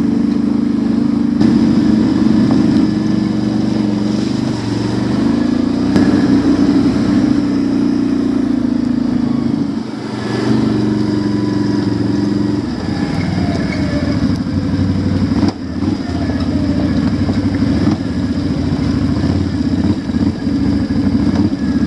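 Engine of a fully automatic ATV running while riding up a dirt trail, its pitch shifting up and down with the throttle.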